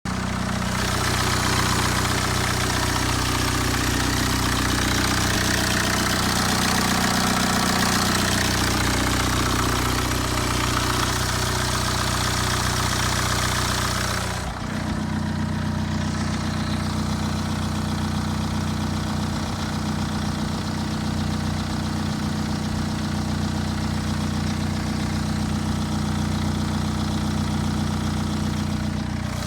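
BMW N47 2.0-litre four-cylinder turbodiesel in a 320d idling after a cold start, with a steady low engine note. About halfway through the higher hiss drops away and the idle carries on more quietly. The owner hears no timing chain rattle in it.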